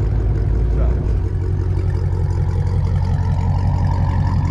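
Two Dodge Charger Scat Packs' 6.4-litre 392 HEMI V8s idling together, one through a full MBRP catback, the other through a mid-muffler delete with its resonators kept. A steady, deep idle; the very lowest drone drops away about a second in.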